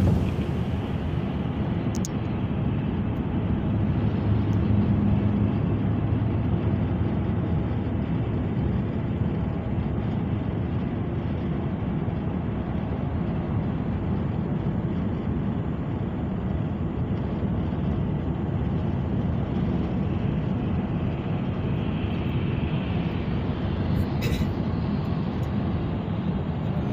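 Steady road and engine noise heard from inside a moving vehicle, a continuous even rumble with a couple of brief clicks.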